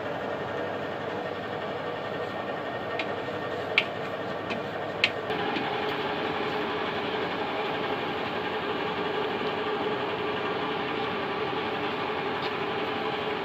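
An electric drum mixer's motor runs with a steady mechanical drone. Two sharp metallic knocks come about four and five seconds in, as a scoop strikes an aluminium milk can.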